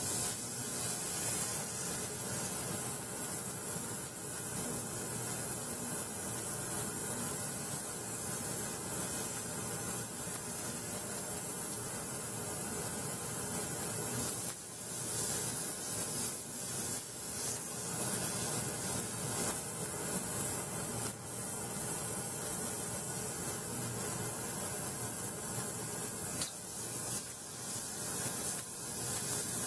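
Harbor Freight ultrasonic cleaner running, a steady high hiss from its hot soapy water bath as a dirty ceramic sharpening stone is held in it and the metal dust is shaken loose.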